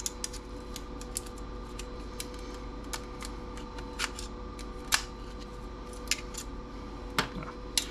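Scattered light clicks and taps of small metal parts being handled and pried loose while an old CRT TV is being dismantled for scrap, about one every half second to second. A faint steady hum runs under them.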